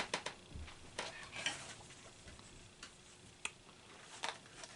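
Light, irregular clicks and taps from small parts and wiring being handled, several close together at first, then only now and then.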